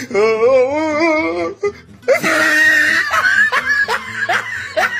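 Music from a comedy clip's soundtrack with a laughing voice: a long wavering note first, then a run of short rising laughs.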